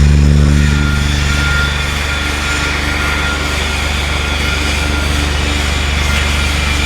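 Steady electrical hum of an arc-welding machine with a grainy, crackling hiss over it; the hum drops a little in level about a second in.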